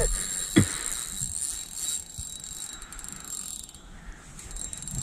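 Carp fishing reel clicking rapidly as a hooked mirror carp is played toward the landing net.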